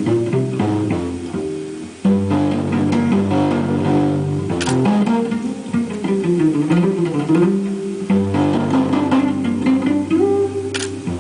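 Guitar music: plucked strings over a bass line, with a brief break about two seconds in before it picks up again.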